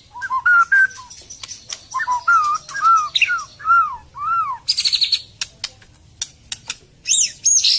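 White-rumped shama singing: a run of arched, whistled notes, then a harsh rasping burst about five seconds in, scattered sharp clicks, and a pair of high whistled notes near the end.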